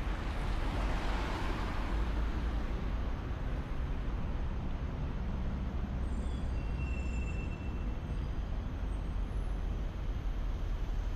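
Street traffic: a vehicle swishes past in the first couple of seconds over a steady low rumble of road noise, with a few faint high squeals around the middle.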